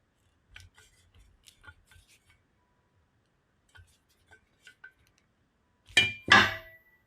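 Click-type torque wrench working a handguard screw: faint light ticks, then two loud sharp metallic clicks about six seconds in as the wrench breaks over at its set torque.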